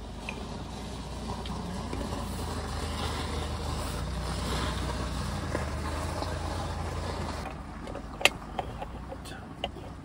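A motor vehicle engine runs steadily for about seven and a half seconds, then cuts off. After it comes one sharp click and several lighter metal clicks as the aluminium parts of a Bialetti Brikka moka pot are fitted together.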